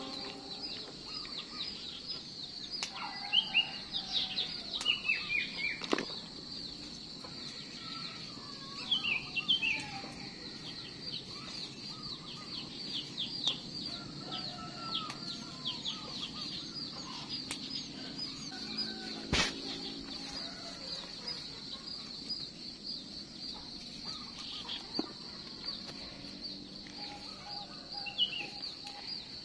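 Small birds chirping in quick, falling notes over a steady high buzz. Chili plants are handled as peppers are picked by hand, with a few sharp clicks.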